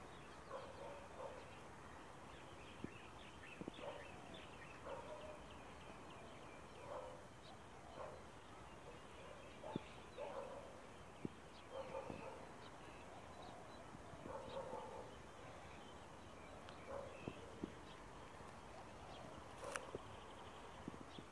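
Faint, short animal calls repeating every second or two over a quiet outdoor background, with a few sharp clicks.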